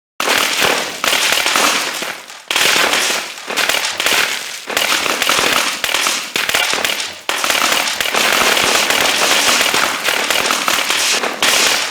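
Rapid-fire gunshot sound effect: long bursts of densely packed, crackling shots, each burst restarting abruptly, about four in all.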